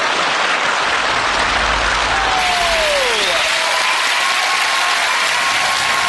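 Studio audience applauding steadily, a dense sound of many hands clapping.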